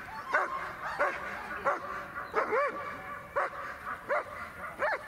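A dog barking over and over in a steady string, about one and a half barks a second.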